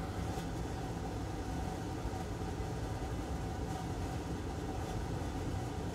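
Steady low hum and hiss of running workbench equipment and fans, unchanging throughout with no distinct events.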